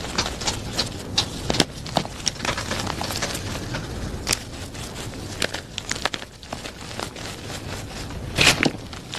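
Blocks of plain gym chalk being crushed by hand, crunching and crumbling with many irregular sharp crackles over a soft powdery rustle, with a louder crunch near the end.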